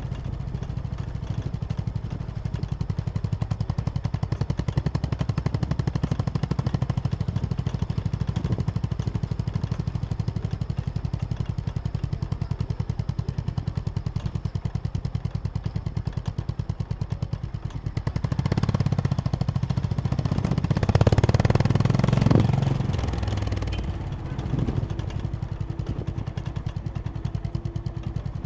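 Honda CB350 H'ness motorcycle's air-cooled single-cylinder engine running steadily under way. For a few seconds about two-thirds of the way through it grows louder, with a rush of added noise, then settles back.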